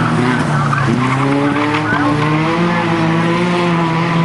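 Racing car engines running, one revving up about a second in and then holding steady, with tyres skidding as a car spins out on the track.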